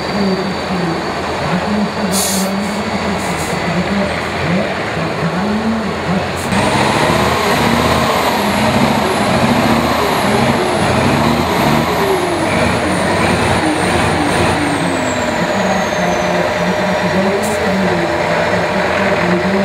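Tatra trial truck's diesel engine revving and labouring through a steep off-road section, its note rising and falling. About six and a half seconds in it gets louder, with a high whine that wavers and then falls away near the end.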